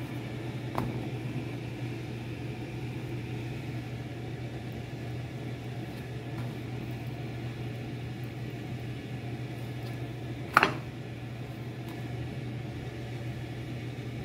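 Steady low kitchen hum with a light hiss around a lit gas stove. There is a faint click just under a second in and one sharp knock, the loudest sound, about ten and a half seconds in.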